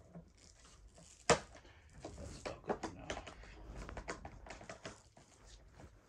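Hard plastic clicks and knocks of an upright vacuum's hose and fittings being handled and hooked into place: one sharp click about a second in, then a run of small taps and rattles.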